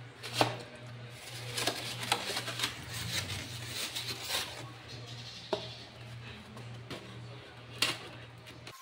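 A plastic spoon scraping and knocking against a large aluminium pan as thick cooked maja blanca pudding is stirred and scooped out, about ten sharp knocks and scrapes, the loudest about half a second in. A steady low hum runs underneath and cuts off abruptly just before the end.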